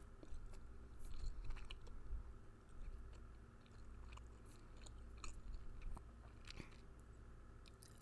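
Chewing gum close to the microphone: quiet, irregular mouth clicks and smacks.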